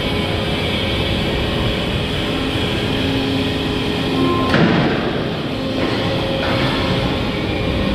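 Husqvarna DXR310 demolition robot's hydraulics running with a steady whine, the pitch shifting as the arm and crusher jaw work against a concrete slab, with one louder crunching burst about halfway through.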